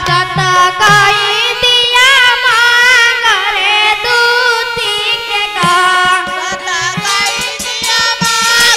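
A child singing a devotional song through a microphone and PA, the melody wavering and ornamented, with a hand drum keeping time beneath.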